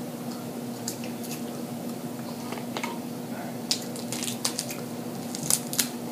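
Wet mouth sounds of eating crab meat: chewing, lip-smacking and finger-sucking, with sharp clicks and crackles of crab shell being picked apart by hand, more frequent in the second half. A steady low hum runs underneath.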